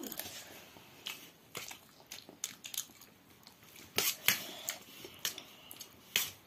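Dishes and utensils clinking in irregular sharp clicks and taps, the loudest cluster about four seconds in.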